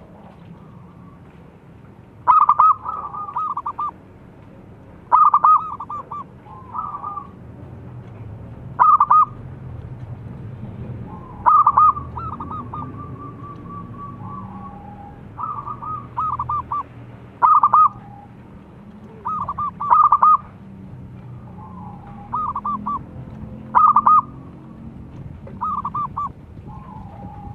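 Zebra dove (perkutut) cooing: repeated phrases of quick staccato notes, each trailing off into a few lower, softer notes, a new phrase every two to three seconds.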